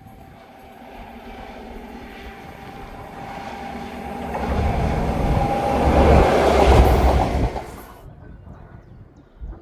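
A train approaching at speed, its running noise with a steady engine tone growing louder to a peak about six to seven seconds in as it passes, then cutting off abruptly about eight seconds in.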